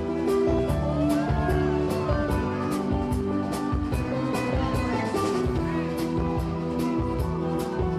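Band music with a drum kit keeping a steady beat, cymbal strokes about three times a second, over sustained guitar and keyboard notes.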